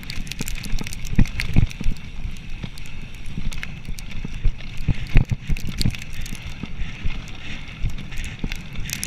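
Mountain bike rolling fast over a bumpy dirt trail, heard from a handlebar-mounted camera: a constant low rumble of tyres and air, with irregular knocks and rattles from the bike over bumps.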